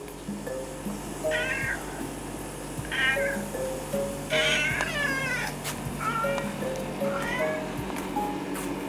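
Domestic cat meowing five times, each call under a second long, the third the loudest and longest, over light background music.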